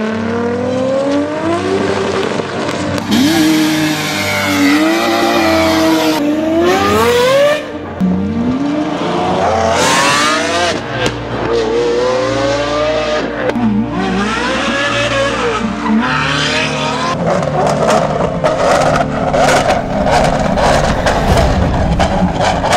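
Car engines revving and accelerating hard one after another, each rising in pitch and dropping back at gear changes, over steady engine drone. In the last few seconds there is a run of short, rapid cracks.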